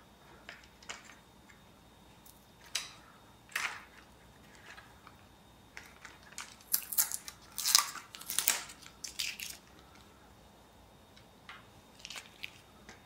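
Hard plastic line-trimmer guard parts being handled and fitted: scattered clicks, knocks and scraping rustles, busiest a little past the middle.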